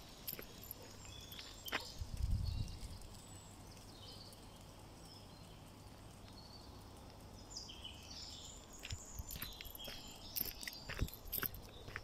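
Quiet woodland ambience: small birds chirping high and intermittently, with footsteps on a dirt path that grow busier near the end. A brief low rumble, the loudest sound, comes about two seconds in.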